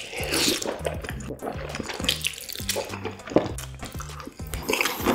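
Wet slurping and chewing of jajangmyeon noodles in thick black bean sauce, with smacking mouth clicks, over background music with a repeating bass line.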